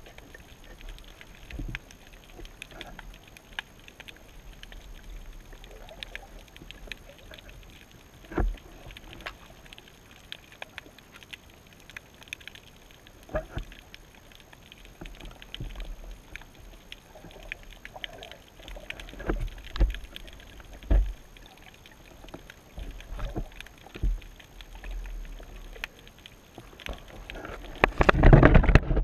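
Muffled underwater noise picked up by a camera in its housing on the seabed: a low surge rumble with scattered knocks and clicks, and a louder rough rumbling stretch near the end.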